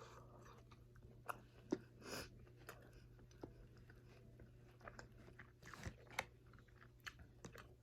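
Faint, close-up chewing of saucy chicken wings: wet mouth smacks and soft clicks, with a few sharper clicks now and then.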